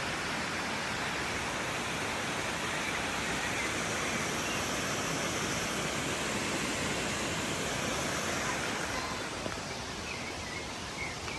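Waterfall with a steady rush of falling water.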